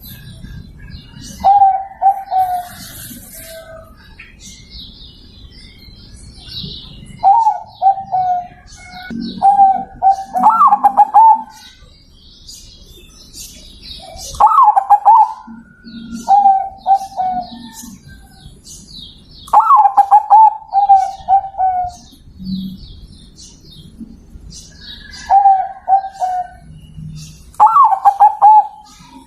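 Zebra dove (perkutut) cooing in repeated short phrases. Each phrase opens with a higher note and drops into a quick run of lower, rolling coos, with gaps of a second or more between phrases.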